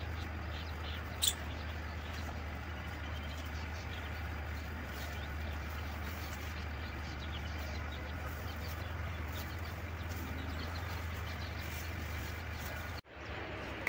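Outdoor farmyard ambience: a steady low rumble under an even hiss, with a few faint bird chirps and one short sharp chirp about a second in. The sound drops out briefly near the end.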